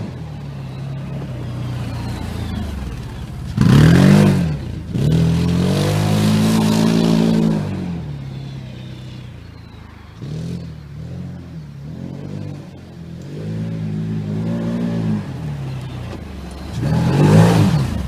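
Can-Am Commander side-by-side's V-twin engine revving up and down as it spins circles on soft, muddy ground, with loud surges about four seconds in and again as it passes close near the end.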